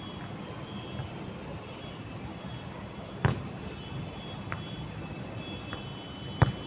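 Two sharp thuds of a football being kicked, about three seconds apart, the second the louder, over a steady outdoor background hum.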